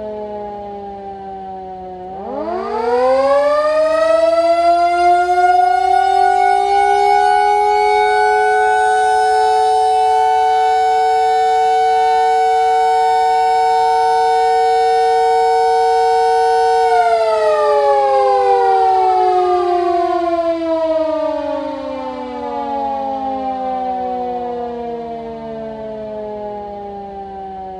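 Two Tokyo Siren electric motor sirens, a 12 V and a 24 V unit, sounding together at two different pitches. They are winding down at first, spin up sharply about two seconds in, and climb to a steady pitch that they hold for around ten seconds. Then they wind down slowly, the pitch sliding lower to the end.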